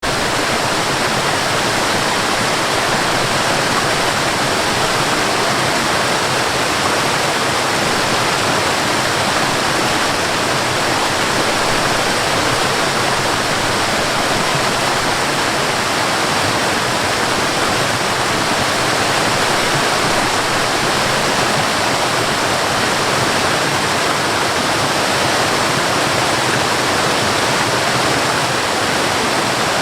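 Waterfall: falling water pouring steadily in an even, unbroken rush.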